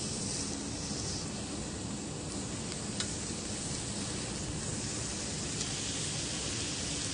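Raw pork belly strips sizzling with a steady hiss as they are laid one after another on a preheated grill pan with metal tongs. One light click about three seconds in.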